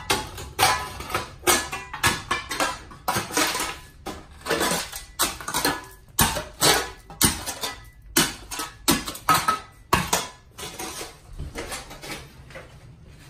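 Metal shovel scraping and scooping dirt and gravel out of a trench in a concrete floor, about two strokes a second, thinning out and growing quieter over the last few seconds.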